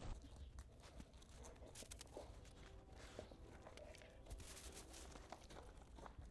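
Faint, scattered crunching and crackling of packed snow as a golden retriever shifts and settles on a snow pile.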